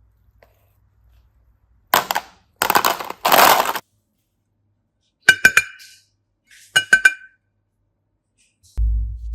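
Handling noises: three short bursts of rustling, then two sharp clinks of small hard objects, each with a brief ring. A low hum starts near the end.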